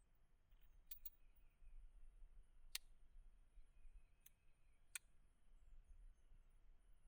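Near silence with a few faint, sharp clicks from the single-action M1879 Reichsrevolver being handled between shots: a quick pair, then three single clicks a second or more apart.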